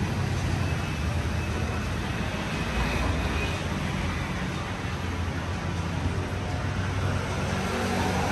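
Street traffic ambience: a steady rumble of passing vehicles, with no single event standing out.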